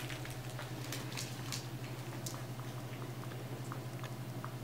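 Light clicks and taps of a puppy's claws and paws on a hard vinyl floor, most of them in the first second and a half, then a few scattered ticks, over a steady low hum.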